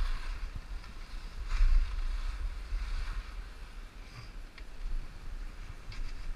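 Skis hissing and scraping over packed snow during a downhill run, with wind buffeting the microphone as a low rumble. The scraping swells briefly about a second and a half in and again near the end.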